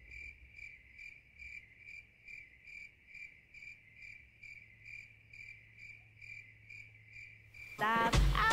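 Cricket chirping: one even, high trill pulsing about three times a second, cutting off suddenly near the end.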